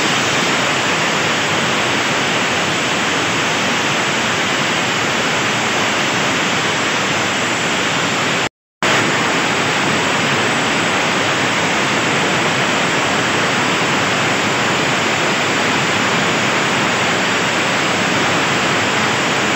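Atlas Copco portable air compressor running under load, a loud steady rush of compressed air with the diesel engine beneath it. The sound breaks off for an instant about nine seconds in.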